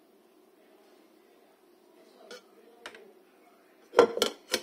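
Kitchen dishes and utensils clinking: two light clinks, then three sharp knocks in quick succession near the end.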